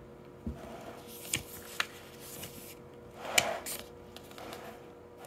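Pages of a paper book being turned and handled: a few short paper rustles and light taps, the loudest and longest about three and a half seconds in.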